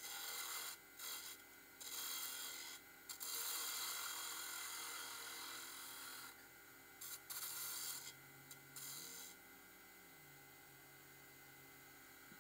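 Bowl gouge cutting a spinning padauk blank on a Nova Comet II wood lathe: a scraping hiss of the cut in several passes with short pauses. The cutting stops about nine seconds in, leaving only a faint steady hum.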